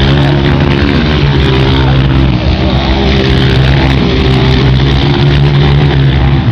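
Honda CRF230 dirt bike's single-cylinder four-stroke engine running hard at fairly steady revs, with small rises and falls in pitch as the throttle changes.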